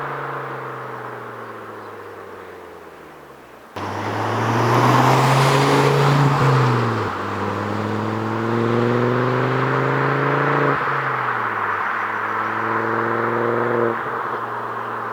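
Ford Focus ST Mk2's turbocharged 2.5-litre five-cylinder engine and exhaust. The revs fall away at first, then it is abruptly much louder under throttle, with a brief dip about seven seconds in, and it pulls again. The revs drop near eleven seconds, it runs steadily, and it drops again near fourteen seconds.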